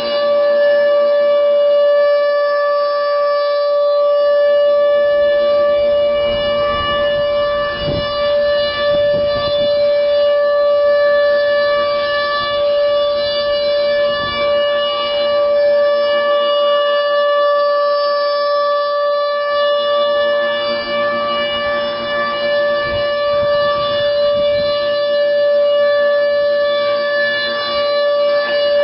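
Federal Signal Thunderbolt 1000 outdoor warning siren sounding a loud, steady single tone that neither rises nor falls: the steady alert signal of a siren test.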